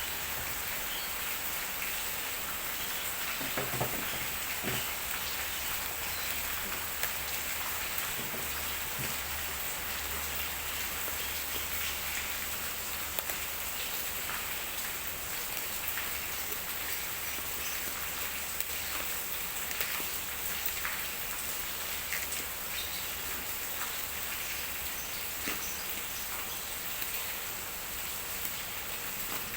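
A parcel being opened by hand: scattered small ticks and rustles of packaging over a steady, even hiss.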